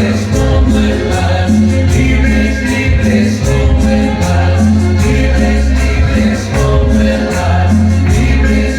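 Vallenato-cumbia song from a sonidero sound system: a pulsing bass line under a steady beat of shaker and scraper percussion, with a pitched melodic lead over it.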